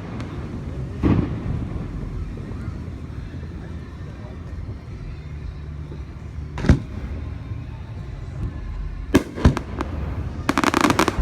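Aerial fireworks shells bursting: a boom about a second in, another past the middle, two sharp reports near the end, then a burst of rapid crackling.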